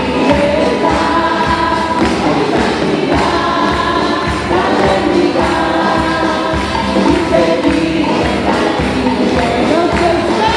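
A congregation singing a lively praise song together with band music, over a steady beat with tambourine and hand clapping.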